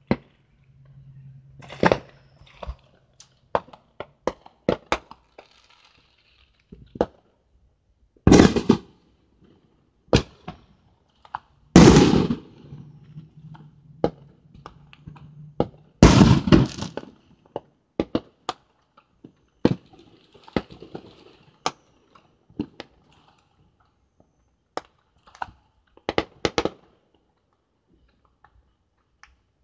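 Fireworks going off around the city: scattered sharp cracks and pops, with a few heavier booms that echo, the loudest about twelve seconds in. A faint low hum sounds at times underneath.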